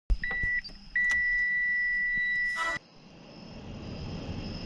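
A high electronic beep: one short beep, then a longer one lasting nearly two seconds that cuts off abruptly. A low steady rumble follows.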